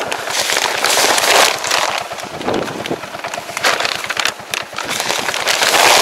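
Plastic sacks of pelleted fertilizer rustling and crinkling as gloved hands grab and shift them, in uneven crackly bursts.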